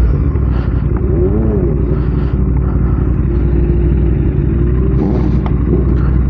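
Motorcycle engines running with a steady low rumble; the engine pitch rises and falls briefly about a second and a half in.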